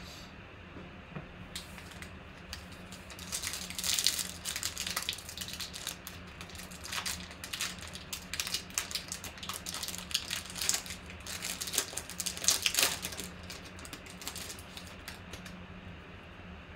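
Shiny wrapper of a 2019 Panini Obsidian football card pack being torn open and crinkled, then the stack of cards pulled out. It makes a run of irregular crackles and rustles, loudest about four seconds in and again around twelve seconds.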